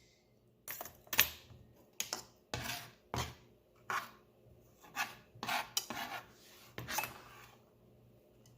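Kitchen utensil scraping and clinking against a dish in a run of about a dozen short strokes, while salad ingredients go into the bowl; the strokes stop about a second before the end.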